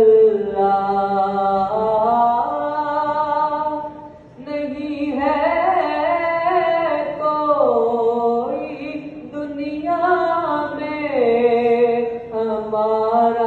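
A boy reciting a naat unaccompanied into a microphone, in long drawn-out notes that slide up and down in pitch. Short breath pauses come about four seconds in and again near the end.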